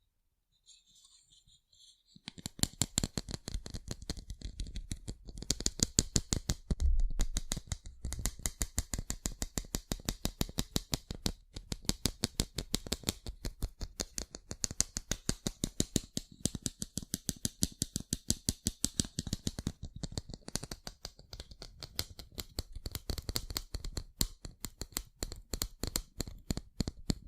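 Rapid light tapping on sunglasses, many crisp taps a second, starting about two seconds in.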